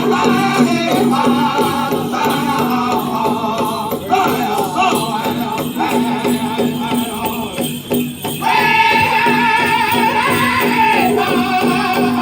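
Powwow drum group singing a chicken dance song: a group of men singing in high, wavering voices over steady beats on a big drum, with the jingle of dancers' bells. The singing breaks briefly about two-thirds of the way through and comes back loud and high.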